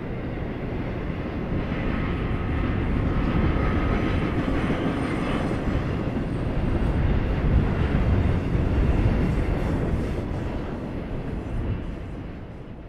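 Trailer-on-flatcar intermodal freight train cars rolling past on the track: a steady rumble of wheels on rail that fades out near the end as the last car goes by.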